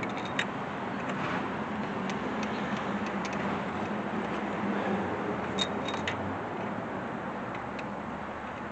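Steady background noise with a few light, sharp clicks of metal parts and tools being handled around the engine bay.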